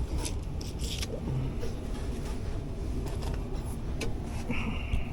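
Air handler blower running with a steady low rumble, with a few light clicks and knocks of handling.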